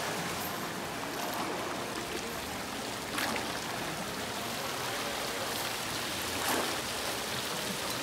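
Indoor fountain's water jets splashing steadily into the pool, with two brief sharper sounds about three seconds in and again past six seconds.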